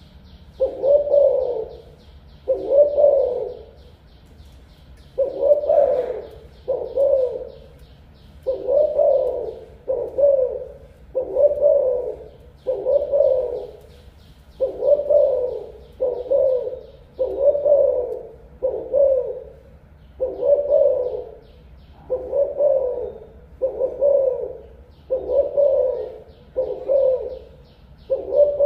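Spotted dove cooing over and over, a long run of low coos at about one a second, in pairs and threes with short pauses between.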